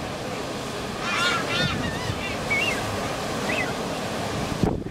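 Surf breaking and washing over a rocky lava shore, a steady rush with wind. About a second in, a bird gives a quick run of short calls that rise and fall, followed by a few fainter single calls; a brief thump near the end.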